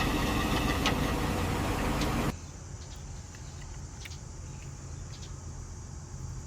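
A vehicle engine running with a steady drone, which cuts off abruptly a little over two seconds in. After that there are only a few faint clicks.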